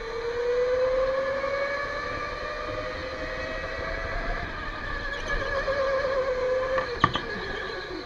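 Electric go-kart motor whining under power, its pitch rising slowly as the kart accelerates, then falling near the end as it slows. A single sharp knock comes about seven seconds in.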